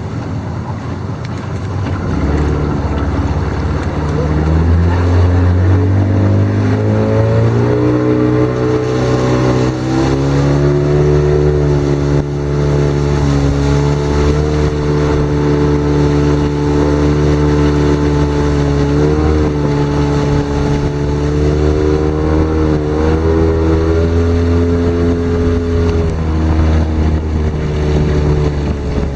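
Tiller-steered outboard motor driving a fishing boat upriver: it revs up over the first several seconds, then runs steadily at speed with a couple of brief wavers in pitch, over wind and water rush.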